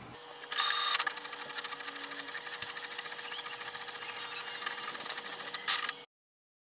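HP Envy Pro 6452 inkjet all-in-one printer making a colour copy: a loud whirring burst about half a second in, then a fast, even ticking with a steady hum as the printed page feeds out, and another loud burst just before the sound cuts off suddenly.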